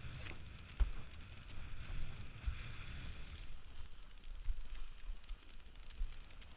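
Windsurfing at speed: wind buffeting the action camera's microphone over the hiss and rush of water spray along the board, with a few dull thumps, the loudest about a second in.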